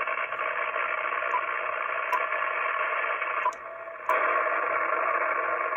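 Amateur radio receiver playing steady hiss and static through its speaker between transmissions, sharply cut off above about 3 kHz by the receiver's filter. A few clicks are heard, and the noise drops out briefly about three and a half seconds in. This is the band noise left after the utility tightened loose power-line connections.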